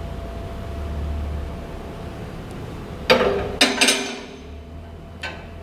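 Steel rod knocking against the vise of a 4x6 metal-cutting bandsaw as it is slid into place: one sharp metallic knock with a short ring about three seconds in, two more close behind, and a lighter click near the end.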